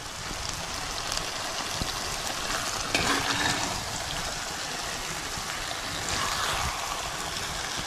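Chicken sukka sizzling in the pot, its released juices cooked down dry on high heat, while a steel spoon stirs and lifts the pieces. A steady hiss with a few faint clicks from the spoon.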